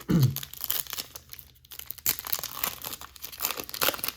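Foil trading-card pack wrapper crinkling and tearing as it is opened, a run of rapid crackles with a brief lull about a second and a half in.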